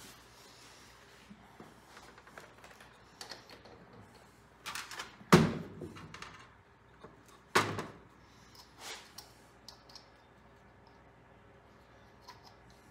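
Metal bolts and hand tools handled during engine assembly: scattered light clicks and taps, with two sharp knocks about five and a half and seven and a half seconds in.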